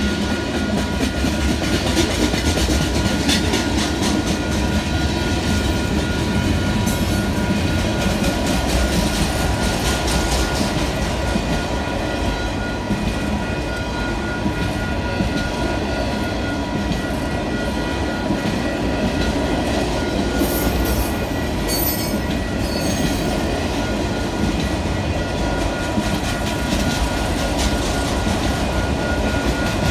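Freight cars of a passing train, tank cars then autoracks, rolling by close at hand: a steady rumble and clatter of steel wheels on the rails, with a few brief high squeals a little over twenty seconds in.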